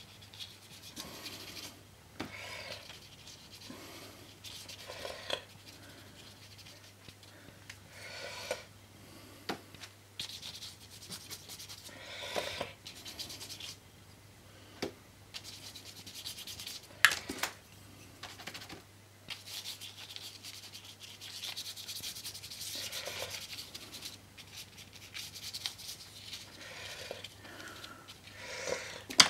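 Irregular scratchy rubbing of a paintbrush and fingers scrubbing paint into a paper print, in uneven strokes, with a sharp knock a little past halfway. A steady low electrical hum lies underneath.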